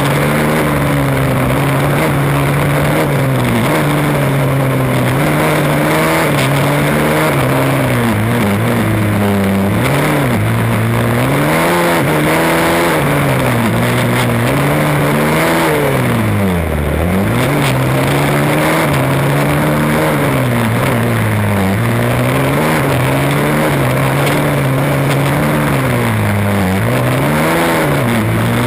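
Combustion-engined Formula Student race car's engine heard from on board, its revs rising and falling again and again as the car accelerates and brakes between cones, dropping lowest about seventeen seconds in.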